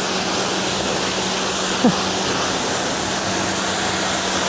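AVA Evolution P80 electric pressure washer firing a narrow, full-power jet of water onto a car's bonnet: a loud, steady hiss of spray with a steady low hum beneath it.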